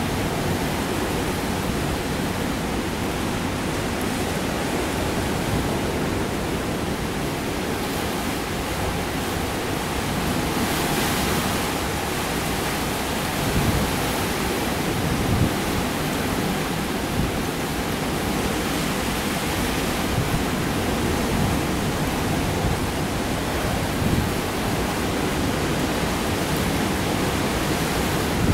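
Hurricane storm surf breaking without pause, with strong wind, a dense and steady rushing noise that swells briefly about eleven seconds in.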